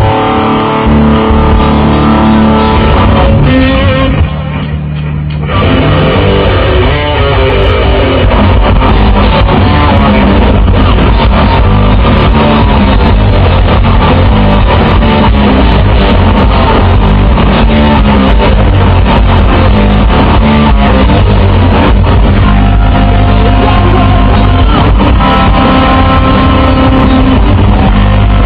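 A rock band playing live and very loudly, with electric guitars to the fore over bass. The band drops back briefly about four seconds in, then the full sound comes back in.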